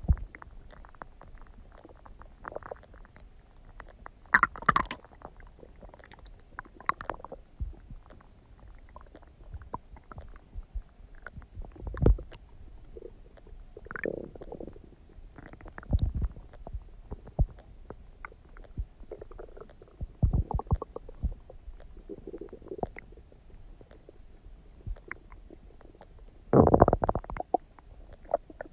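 Human stomach gurgling and rumbling: irregular bubbling pops and short gurgles as gas and fluid move through the gut, with a longer, louder gurgle near the end.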